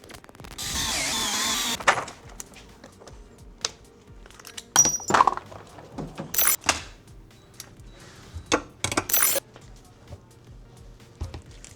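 Metal tool and parts clinking and clicking while a bicycle brake disc is fitted, with a steady burst of noise lasting over a second near the start and several short sharp bursts later. Faint background music runs underneath.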